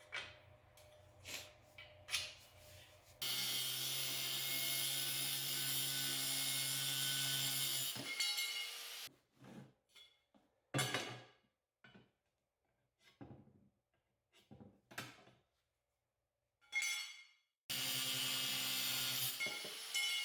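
A handheld power tool's motor running steadily in two stretches, one of about five seconds and one near the end, with sharp metal clinks and knocks between them as steel parts are handled.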